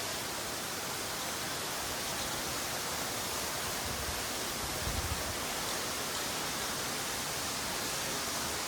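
Steady rush of a waterfall running with low flow after a week without rain, with one brief low thump about five seconds in.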